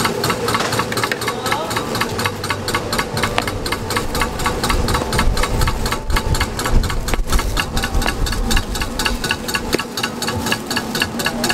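A small motor or engine running steadily with a fast, even knocking beat.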